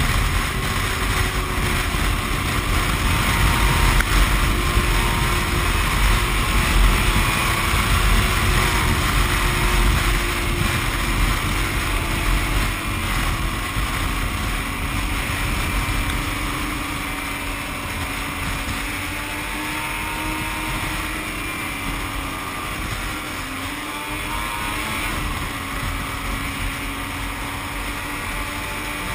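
Yamaha snowmobile engine running steadily at cruising speed, its note wavering slightly, with wind rumbling on the microphone. The overall level eases off a little about halfway through.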